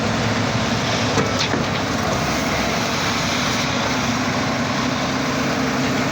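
Engine of an earth drilling machine for optical fibre cable running steadily, with a brief click about a second in.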